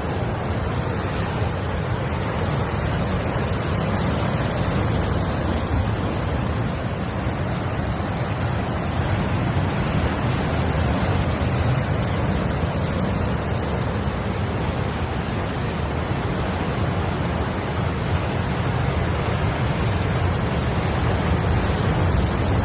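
Steady wash of sea surf with wind rumbling on the microphone.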